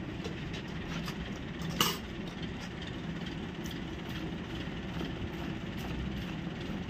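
Milk squirting in soft strokes into a steel bucket of foamy milk as a Holstein Friesian cow is hand-milked, over the steady hum of an electric fan. A sharp knock about two seconds in.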